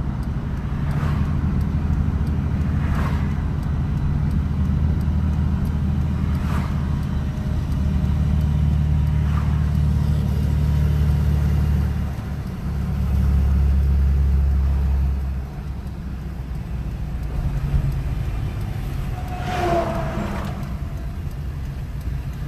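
A farm machine's engine drones steadily, changing note about twelve seconds in and quietening about three seconds later. Other vehicles pass by every few seconds.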